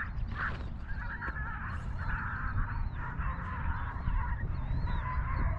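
Geese honking over and over in a run of calls, over a steady low rumble.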